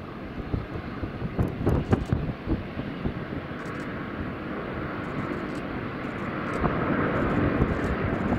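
Jet airliner's engines at takeoff thrust, a rushing noise that grows steadily louder as the aircraft approaches.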